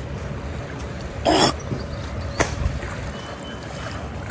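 Steady low rumble of wind on the microphone, with a short loud rustle about a second in and a single sharp click about a second later.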